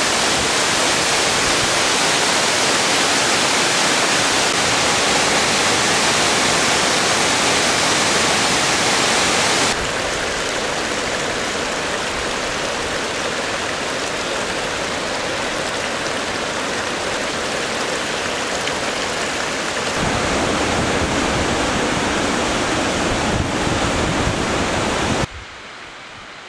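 A fast mountain stream rushing, loud and steady. The level steps down about ten seconds in and comes back up with more low rumble about twenty seconds in, then drops away abruptly near the end.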